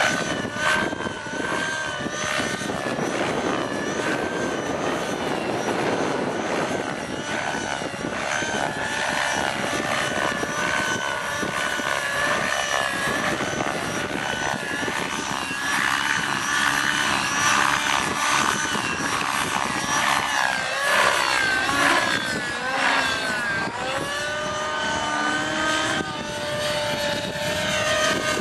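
Align T-Rex 600 Nitro radio-controlled helicopter in flight: its nitro engine and rotor blades run continuously, with the pitch swinging up and down again and again as it flies 3D aerobatics.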